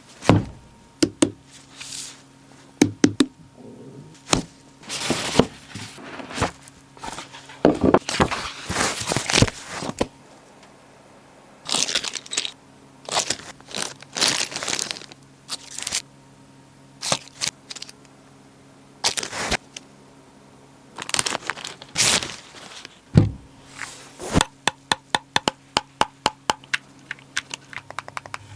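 Packaging of a Keychron Q15 Max mechanical keyboard being unboxed: cardboard and plastic wrap rustling and tearing, with sharp knocks and clicks as pieces are handled and set down. A quick, even run of sharp clicks comes near the end. A faint steady hum runs underneath.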